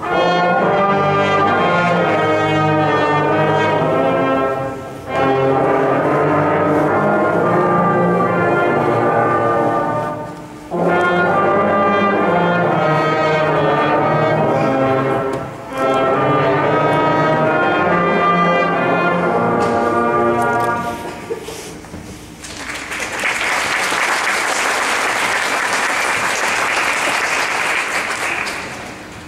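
Fifth-grade brass section of trombones, tubas and other brass horns playing a piece in four phrases, with short breaks between them, ending about 21 seconds in. An audience then applauds for about six seconds.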